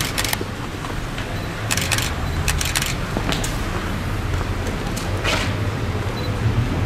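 Outdoor street ambience: a steady low rumble with a handful of sharp clicks and taps scattered through it.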